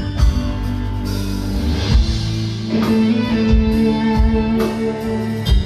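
Band playing an instrumental passage between sung lines: guitar, bass and drum kit, with held notes and steady drum hits.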